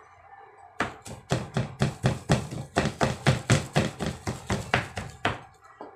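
Kitchen knife rapidly chopping banana heart on a plastic cutting board: a steady run of sharp knocks, about five a second, starting about a second in and stopping near the end.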